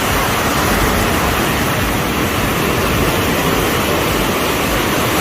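Steady rushing noise of ocean surf on the beach.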